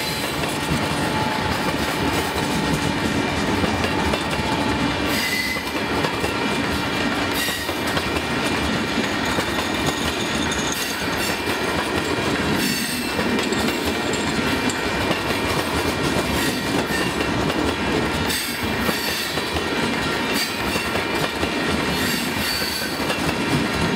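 Empty open-top gondola cars of a freight train rolling past close by: a steady loud noise of steel wheels on rail, with a few sharp knocks and faint thin high squealing tones.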